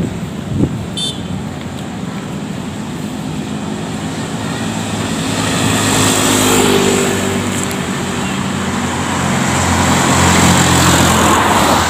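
Road traffic going by close at hand: motorbikes and scooters pass with a steady engine and tyre noise. The sound swells about six seconds in and again near the end.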